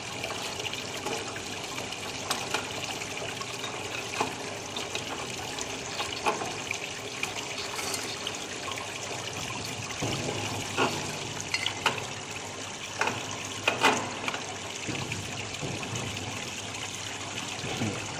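Coolant water streaming and splashing from a pipe over the spiral wire-forming die of a chain link fencing machine into its tray, with scattered short sharp clicks, more of them in the second half.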